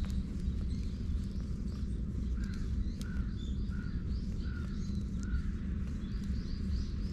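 A bird calling: a run of about six short, evenly spaced calls in the middle, with fainter, higher chirps around them. Under it runs a steady low rumble.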